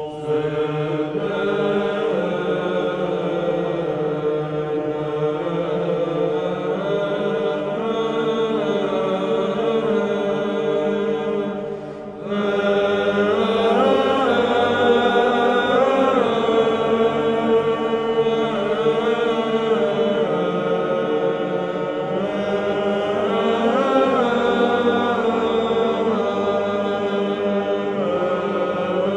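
Greek Orthodox Byzantine chant: voices sing a wavering melody over a steady held drone note, breaking off briefly about twelve seconds in before carrying on.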